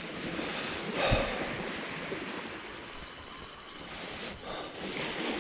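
Waves washing on a shingle beach, swelling about a second in and again near the end.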